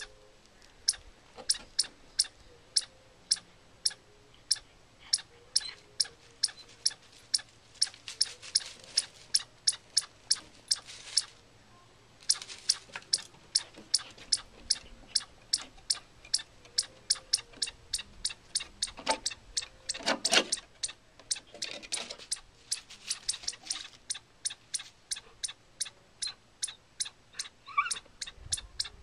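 A chipmunk giving its alarm call at the dog: a long run of sharp, high chips, about two a second, coming faster in stretches. A louder knock sounds about twenty seconds in.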